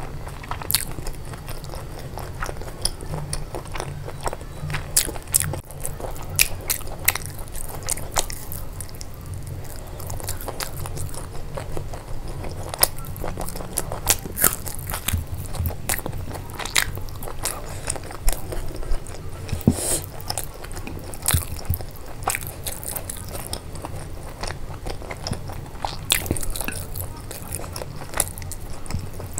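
Close-miked eating: a person biting and chewing food, with many irregular sharp crunches and mouth clicks.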